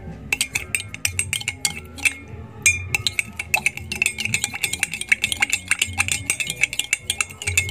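A spoon stirring lemon juice and sugar in a glass, clinking quickly and ringing against its sides, with a short break about two seconds in, to dissolve the sugar.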